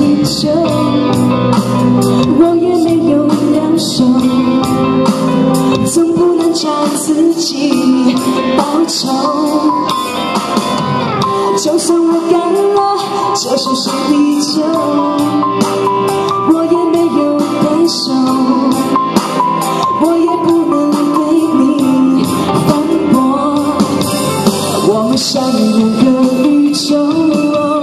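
A woman singing a Mandarin pop song live into a handheld microphone, with instrumental accompaniment.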